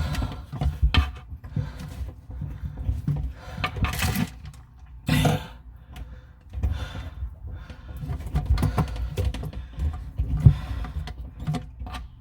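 Scattered clicks, knocks and rustling from hand tools and faucet fittings being worked during a bathroom faucet installation, as a part is fought with needle-nose pliers and will not go on. Two short bursts of rustling come around the middle.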